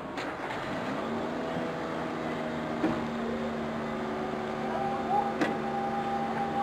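Motor-driven sirens wailing. One winds up about a second in and holds a steady pitch, and a higher siren tone joins near the end as a fire engine arrives. Two sharp knocks are also heard.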